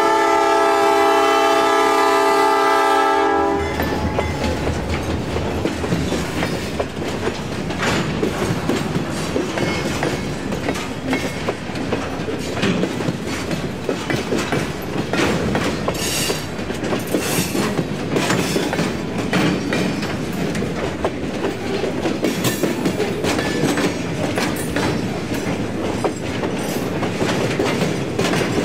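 A locomotive horn, the EMD GP9RM's P5, sounds a steady multi-note chord and cuts off about three and a half seconds in. Then the train rolls by, its wheels clicking over the joints of jointed rail.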